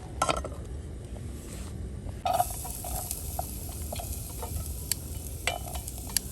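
Food sizzling in a pan, with a utensil clinking and scraping against the pan several times as it is stirred.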